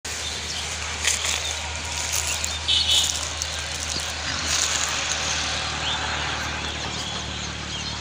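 Steady outdoor background noise with a low, even hum, and a few brief rustles about one second and three seconds in.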